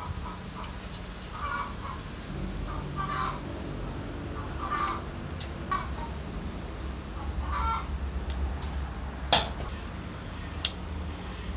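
Needle-nose pliers and wires being handled: small taps and rustles, with a sharp click about nine seconds in and a smaller one about a second later.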